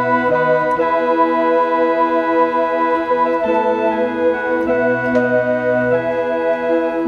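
Casio CTK-240 electronic keyboard playing held chords on a sustained, organ-like tone, with the chord changing every second or two.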